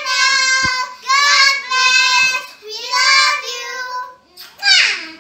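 Young girls singing in high voices, in phrases of about a second each, ending with a falling squeal just before the sound stops.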